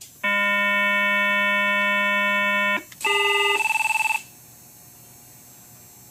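Telephone buzzer wired to a Valcom intercom unit, buzzing steadily for about two and a half seconds. After a short gap comes a second, higher, fluttering tone lasting about a second.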